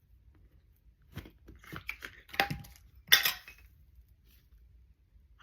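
Small plastic toy capsule and its contents being handled: a quick run of light clicks, knocks and clinks over about two seconds, one clink ringing briefly.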